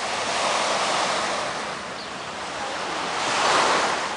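Small waves washing onto a sandy beach: a steady hiss of surf that swells about a second in and again, louder, just past three seconds.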